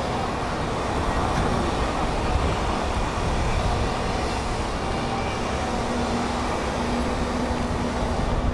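Steady city street traffic noise from passing vehicles, with a steady hum joining about halfway through.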